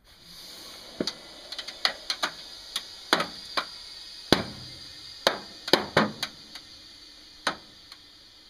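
Compressed air hissing steadily into a tire jammed inside a microwave, starting abruptly. Irregular sharp cracks and pops come from the tire and microwave straining under the rising pressure.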